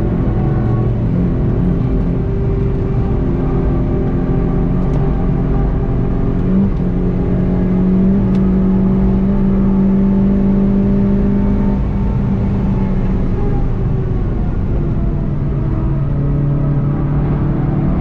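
Volkswagen Golf GTI TCR's turbocharged four-cylinder engine, heard from inside the cabin, running hard at high revs under steady acceleration, over constant road noise. Its note climbs slowly, then falls to a lower pitch in the last few seconds as the car slows.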